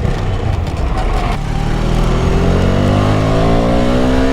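KTM Duke 250's single-cylinder engine accelerating, its pitch rising slowly through the second half as the bike pulls up through a gear, over a steady rush of road and wind noise.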